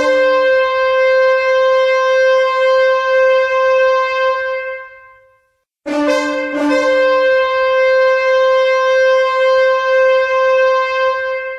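Two long horn blasts, a musician's recreation of the rapture trumpet heard in a dream. Each opens with a brief lower note and jumps up to a single held note; the first blast fades out about five seconds in, and the second starts about a second later and is still sounding at the end.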